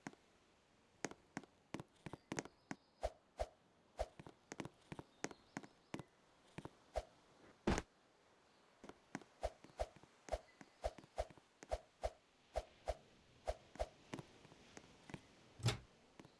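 A run of sharp taps or clicks, irregular at about two or three a second, with two louder knocks about eight seconds in and near the end.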